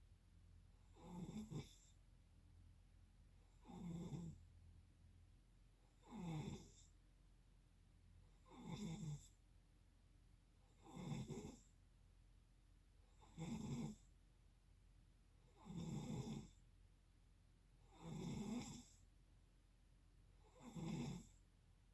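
Faint, regular snoring: nine snores about two and a half seconds apart, each a short rasping swell under a second long.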